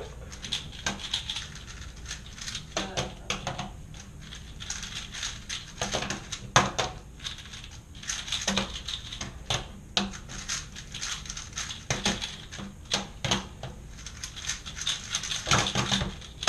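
Rubik's cube being turned fast during a speed-solve: a dense, irregular stream of plastic clicks and clacks from the layers.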